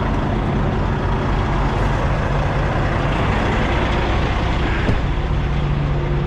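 Kenworth semi truck's diesel engine running steadily at idle.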